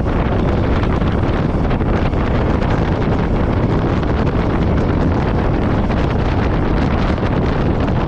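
Wind buffeting the microphone of a motorcycle riding at speed, over the steady running of a Royal Enfield Meteor 350's single-cylinder engine.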